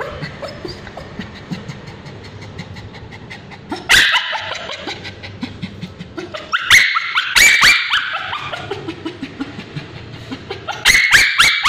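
Male Bichon Frise screaming in high-pitched bouts while ointment is applied to its scabies-affected tail. There are three loud bouts: about four seconds in, a longer one of several cries around seven seconds, and a burst of cries near the end.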